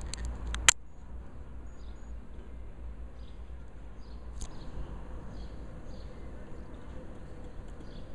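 Handling noise from a camera held close to the subject: a low rumble, with one sharp click just under a second in and a few faint ticks later.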